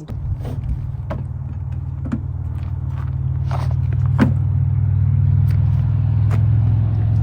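An engine running steadily with a low hum that grows a little louder, and a scatter of sharp clicks and scrapes from things being handled.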